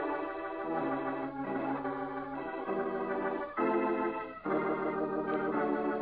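Organ music: a musical bridge of sustained chords that shift every half second to a second, closing the episode's story.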